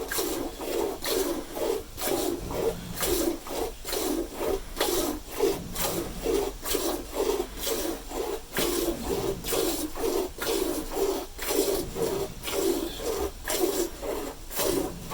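Milk squirting into a pail as a cow is hand-milked: a steady rhythm of short swishing squirts, about two to three a second.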